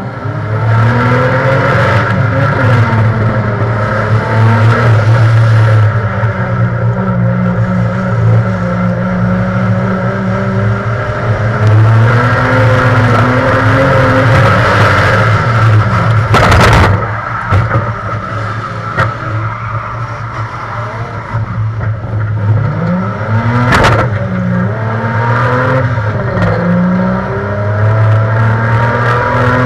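Rear-wheel-drive banger race car's engine heard from inside its stripped cabin, running hard and revving up and down as the driver lifts and accelerates. Two short, sharp bangs cut through, one a little past halfway and one about seven seconds later.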